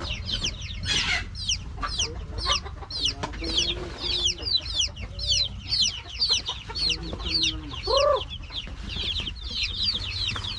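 A flock of chicks peeping without pause: many high, short, falling peeps, several a second, overlapping one another. A few lower calls rise out of them now and then, the clearest about eight seconds in.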